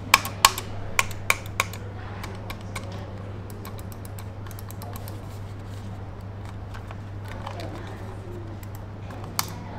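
Logitech PRO X Superlight gaming mouse buttons clicking: five sharp clicks in the first two seconds, then quieter, quicker clicking, and one more sharp click near the end.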